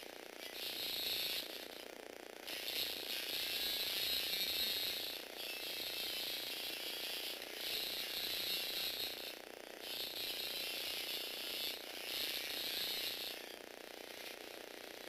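Motorized Lego Technic rescue truck model's electric motor and plastic gear train running with a high whir as it drives, switching on and off in spells of one to three seconds and stopping near the end.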